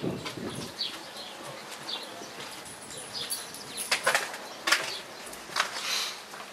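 Small birds chirping in short, repeated notes, joined from about four seconds in by a few sharp clattering strokes.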